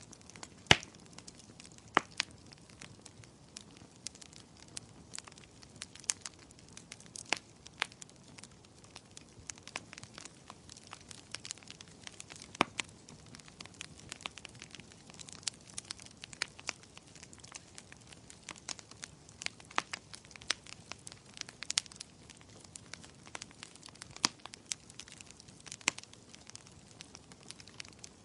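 Burning firewood crackling in a fireplace: irregular sharp pops and snaps over a faint steady hiss of flames, the loudest pop about a second in.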